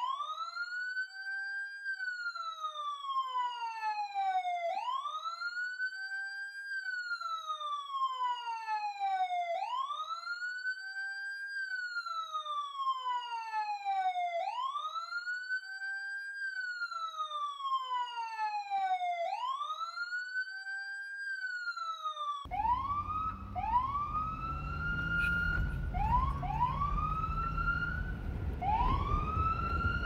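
Police siren wailing: each cycle climbs quickly, holds briefly and falls slowly, repeating about every five seconds. About two-thirds of the way through it changes to shorter rising swoops that settle into a held tone, over a low rumble.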